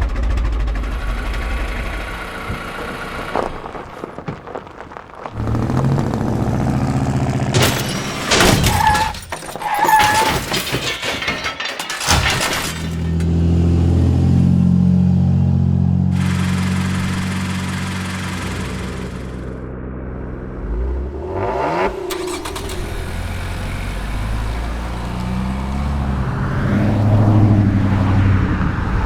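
A run of short vehicle sound effects, one after another. Engines run and change pitch, and a burst of sharp knocks and clatter comes in the middle.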